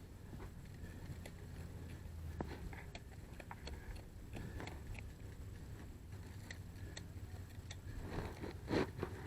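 Faint scattered clicks and rustles over a low steady hum, with a louder burst of rustling about a second before the end.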